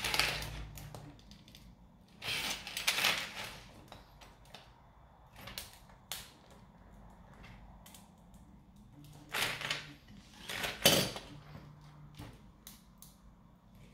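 Crackling and snapping of a large articulated PLA 3D print being pried off the print bed with a knife, in short bursts at the start, around two and a half seconds in, and twice near the end, the last the sharpest. Small clicks of the loose plastic segments fall in between.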